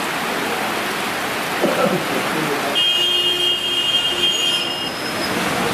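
Steady hiss of rain falling on standing water. A little under halfway through it changes to wet-street sound in the rain, with a steady high tone held for about two seconds.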